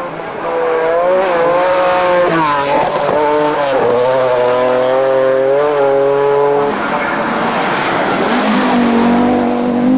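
Group B rally car engine at full throttle on a gravel stage, its note climbing and then dropping sharply a few times as it shifts gear or lifts. In the last few seconds a rushing hiss of tyres and gravel joins a lower, steadier engine note.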